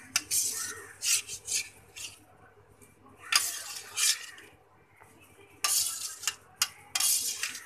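Metal utensil scraping and clinking against a stainless steel bowl as soft pressure-cooked tomato pieces are scooped out into a steel mixer-grinder jar. It comes in a string of short scrapes, with a longer one about three seconds in and several close together near the end.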